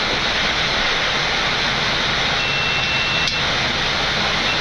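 Flight-deck noise of a Boeing 787 accelerating down the runway at takeoff thrust: a steady, loud rush of engine and airflow noise with rumble from the runway. A brief high beep sounds about halfway through.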